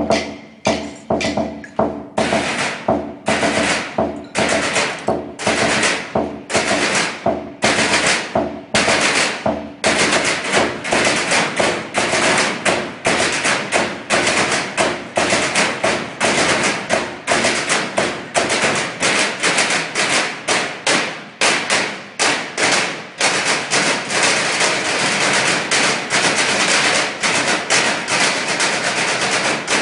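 Percussion ensemble playing on a row of galvanized metal trash cans. It opens with spaced, accented hits separated by short gaps, then from about ten seconds in breaks into a dense, fast, continuous rhythm.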